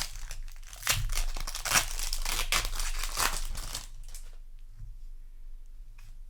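Foil wrapper of a Magic: The Gathering play booster pack being torn open and crinkled: a run of crackly rips and crumples for about four seconds, then only a few faint rustles.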